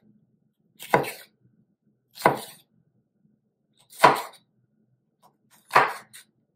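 Kitchen knife cutting through green bell pepper and striking a wooden cutting board: four separate slicing chops, one every second and a half to two seconds.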